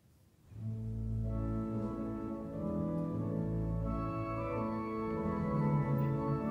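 Organ music in slow, sustained chords, coming in about half a second in.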